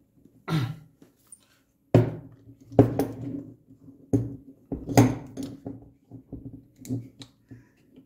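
Crivit steel folding bike lock being worked by hand: about half a dozen sharp, irregularly spaced metal clicks and knocks as its locking pin is pushed into the lock body.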